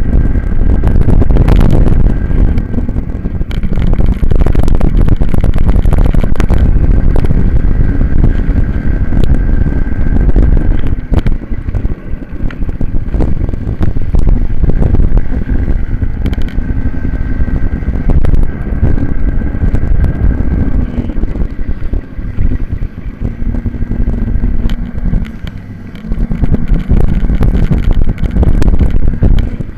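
A racing minibike's engine heard on board at high revs, with heavy wind buffeting on the microphone. The engine note eases off and picks up again a few times for the corners, most clearly about 11 seconds in and again a little past the 20-second mark.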